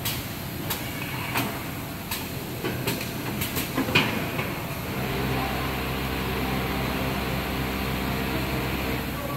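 Automatic PPR pipe packing machine running: sharp mechanical knocks about every 0.7 s in the first four seconds, the loudest near four seconds in. Then a steady motor hum from about five seconds in, which stops just before the end.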